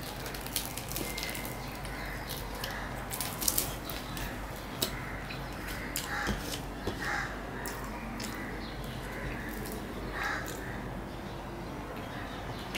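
Fingers tearing deep-fried luchi on a steel plate and the eater chewing, with sharp crisp clicks, the loudest a cluster about three and a half seconds in. A bird calls again and again in the background, short calls every second or two.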